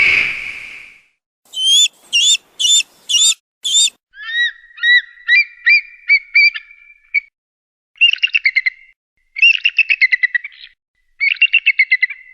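Eagle calls. A loud scream fades out in the first second, followed by five short whistled notes. A run of high chirps comes next, then three bursts of rapid, high-pitched chattering trills.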